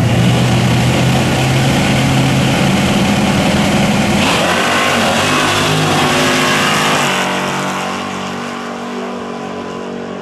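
Two Fox-body Ford Mustang drag cars launching at full throttle, the engine note rising through the gears as they run down the strip. They pass close about four seconds in, and the sound fades as they pull away.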